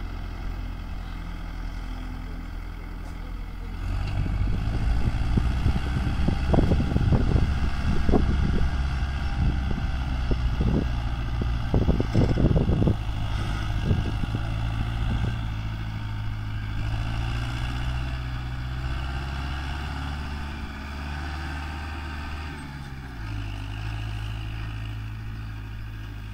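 Kubota MU4501 tractor's four-cylinder diesel engine pulling a heavily loaded trolley. It gets louder about four seconds in, with irregular low thumps for several seconds, then slowly fades as the tractor moves off.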